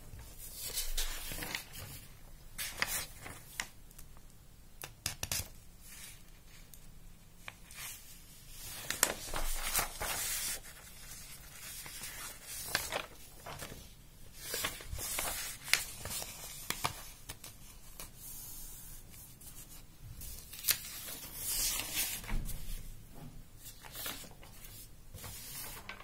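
Loose sheets of paper being handled and turned over, with irregular rustles and crinkles and a few sharp crackles.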